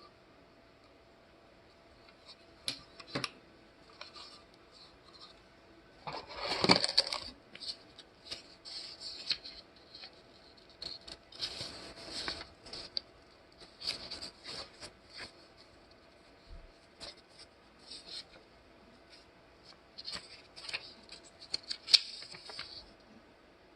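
Objects being handled at close range: irregular clicks, scrapes and rustles, with a longer rustling burst about a quarter of the way in and a sharp click near the end.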